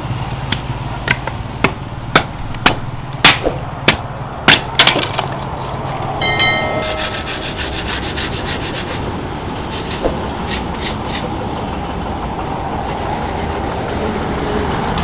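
A run of sharp knocks, about two a second, for the first five seconds, then a brief ringing tone and a steady rubbing sound.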